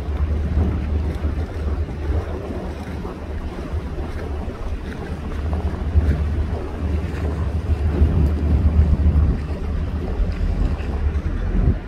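Water taxi's engine running steadily with a low rumble as the boat cruises, with wind buffeting the microphone.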